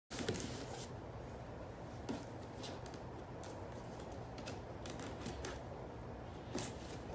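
Faint rustling and scattered clicks of gift packaging being handled, over a low steady hum.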